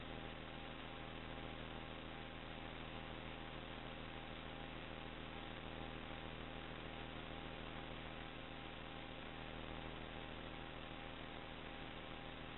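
Steady electronic hiss with a low hum and a few faint steady tones: the empty audio channel of an FPV video receiver's recording, with no microphone connected to the camera.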